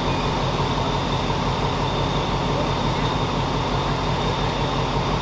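Alsthom diesel-electric locomotive's engine running with a steady low hum.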